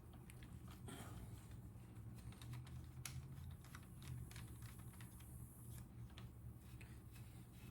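Faint, scattered small clicks and ticks of a screwdriver backing the top stock screw out of a Daisy Model 1938 BB gun, over a low steady hum.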